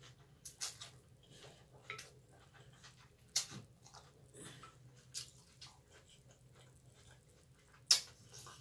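Eating sounds from a bowl of pho rice noodles: slurping and chewing, with scattered sharp clicks and smacks. The loudest click comes near the end.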